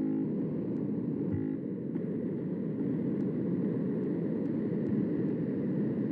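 Steady low rushing background noise coming through the video-call audio, with a few faint ticks.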